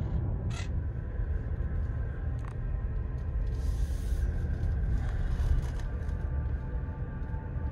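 Car cabin noise while driving slowly: a steady low rumble of engine and tyres on the road, with a couple of light clicks.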